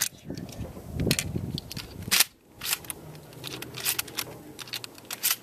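A shotgun fires a sharp shot about two seconds in, among many small clicks and clacks of shells being handled and loaded into the gun. Another sharp crack comes near the end.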